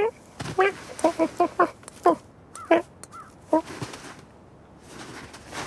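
Cartoon crow cawing: a quick run of short caws, about four in a row, then a few more spaced out, followed by a soft rustling noise near the end.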